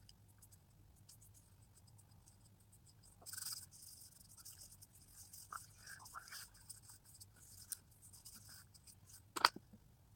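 Faint scratchy rubbing of hands spreading face powder over the skin of the face and neck, starting about three seconds in, with a sharp tap near the end.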